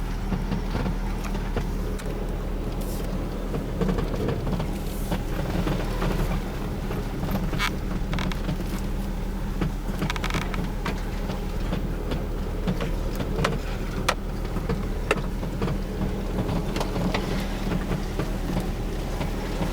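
Cabin noise of a 2009 Subaru Forester (third-generation SH) on the move: a steady engine and road hum, with irregular short creaks and ticks from the interior trim. This is the cabin squeak the owner is recording.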